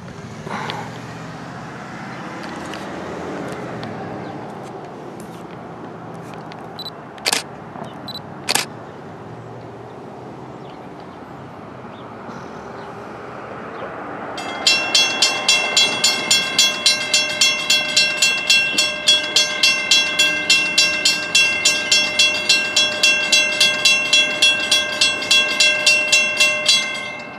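Railroad grade-crossing warning bell starts about halfway through and rings steadily at about four strikes a second, signalling an approaching train. Before it there is a steady low background noise with two short sharp sounds about a second apart.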